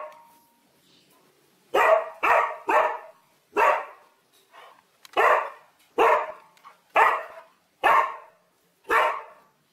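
Siberian Husky barking, about nine barks roughly a second apart beginning about two seconds in; the dog is barking at a bakso vendor's cart, which the owner reads as fear.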